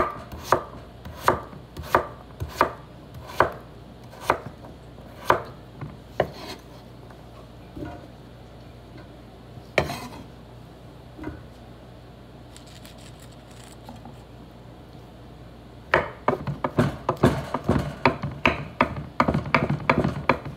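Chef's knife slicing a peeled potato on a wooden cutting board, a sharp knock each time the blade meets the board. The knocks come evenly, about one every two-thirds of a second at first, then only a few scattered ones, then a quick run of fast chopping near the end.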